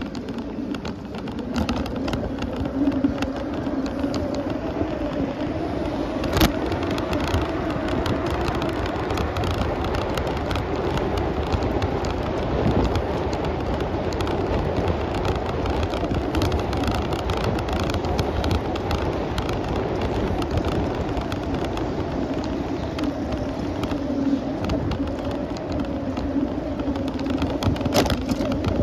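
Steady rumble of a bicycle ride: wind on the microphone and tyres rolling on pavement. Two sharp knocks stand out, about six seconds in and near the end.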